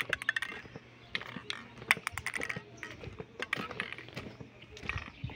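Footsteps crunching on loose gravel: a string of irregular crunches and clicks as someone walks.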